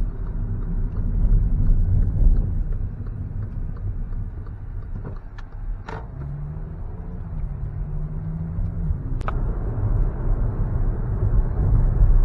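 Road and engine noise inside a moving car: a steady low rumble that eases off in the middle and builds again near the end.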